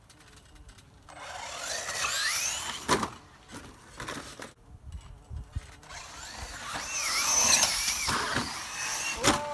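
Electric motor of a Traxxas Slash RC truck whining up and down in pitch as it speeds up and slows. It runs in two stretches, with a sharp knock about three seconds in and another near the end.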